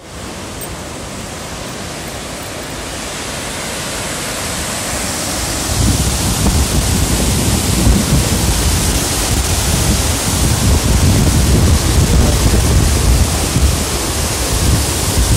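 Steady rushing of running flood water, growing louder over the first few seconds. From about six seconds in, gusty low buffeting of wind on the microphone joins it.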